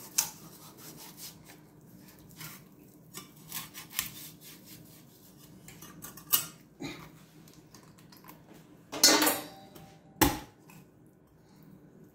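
Meat cleaver cutting a raw whole chicken in half on a plastic cutting board: scattered knocks and scrapes as the blade works through, with the loudest chops about nine and ten seconds in.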